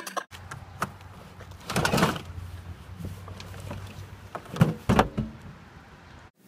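A blue plastic wheelie recycling bin being rummaged in: a scraping, rustling burst about two seconds in, then a few sharp hollow knocks around five seconds as the microwave is pulled out against the bin. A steady low hum runs underneath.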